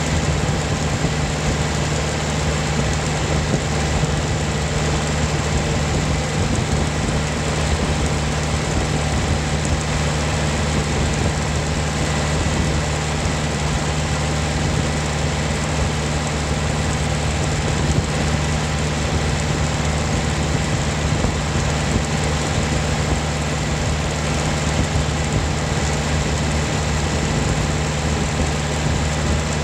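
John Deere tractor engine running at a steady, unchanging speed while the tractor drives along a gravel road, with tyre noise from the gravel beneath it.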